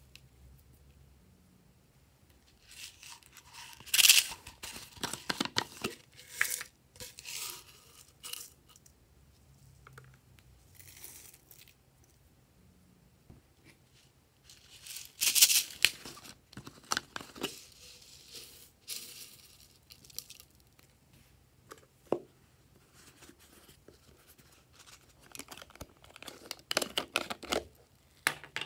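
Crackling and rustling of plastic containers of foam beads and sprinkles being handled and opened, in several bursts with quiet stretches between. One sharp click comes about two-thirds of the way through.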